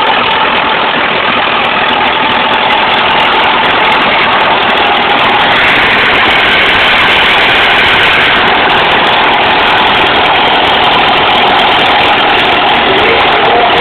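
1937 Case CC tractor's four-cylinder engine running steadily under load as the tractor pulls a weighted sled at a crawl.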